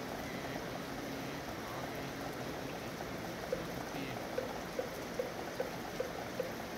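Steady rain falling. About halfway through, a wooden moktak begins an even beat of short knocks, about two and a half a second, marking time for Buddhist sutra chanting.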